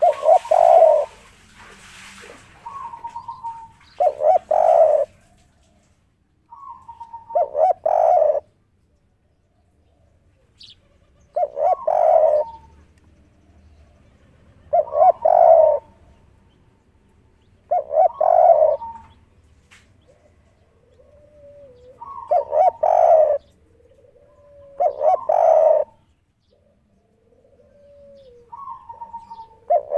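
Spotted dove cooing its three-part 'kuk 3' phrase, repeated about every three seconds, each phrase opening with a short higher note before the louder low coos. Faint gliding notes come between the phrases in the second half.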